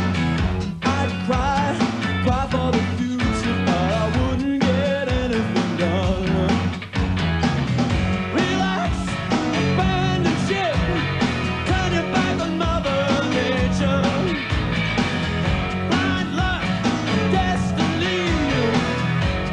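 Rock music with a singing voice and a steady beat.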